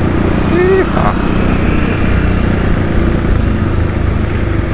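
Dirt bike engine running steadily while the bike rides along.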